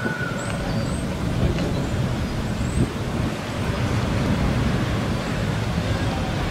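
Metre-gauge steam locomotive working towards the station with its train, heard as a steady low noise, with a few faint high bird chirps.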